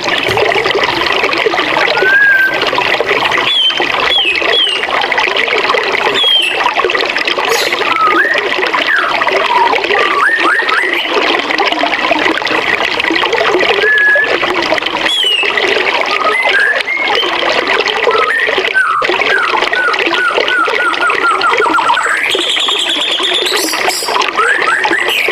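Forest river or waterfall rushing steadily, with birds singing over it: scattered short gliding chirps, a quick run of repeated notes past the middle, and a rising call near the end.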